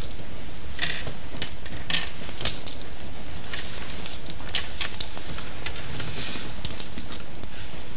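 Go stones clicking and clattering against one another and the board as hands push and rearrange them to count territory at the end of the game. The clicks are irregular, several a second, over a steady hiss.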